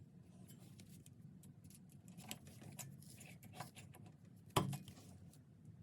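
Irregular small clicks and scrapes of tools being handled, with one sharp knock about four and a half seconds in.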